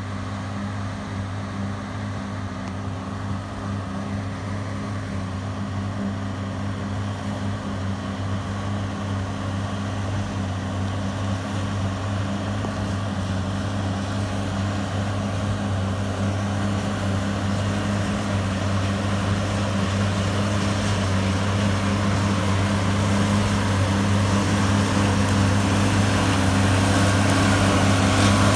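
Fendt 930 Vario tractor's engine running under steady load while pulling a Krone Big Pack 1290 HDP XC large square baler as it picks up straw. The steady hum of engine and baler grows gradually louder as the rig approaches.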